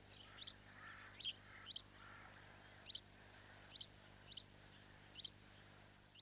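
A small bird calling repeatedly, a faint series of short, high chirps about once or twice a second, over quiet outdoor background.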